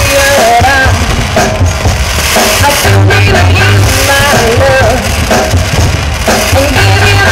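Loud pop music with a sung melody over a heavy, repeating bass line.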